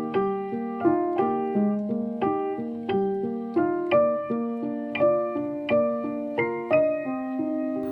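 Background piano music: soft notes and chords struck at an even, unhurried pace, each ringing and fading, with a longer held chord near the end.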